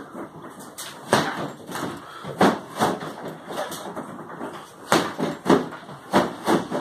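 Punches and kicks landing on a freestanding body-opponent bag (BOB) training dummy: about seven sharp thuds, several in quick pairs.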